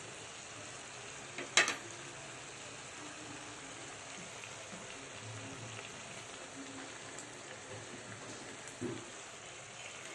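Cabbage, carrots and ground meat sizzling steadily in a frying pan. A sharp knock about one and a half seconds in is the loudest sound, with a softer knock near the end.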